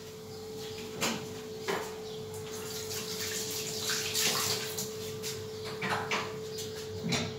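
Quiet kitchen background: a steady hum over a light hiss, with a few soft knocks spaced a second or more apart.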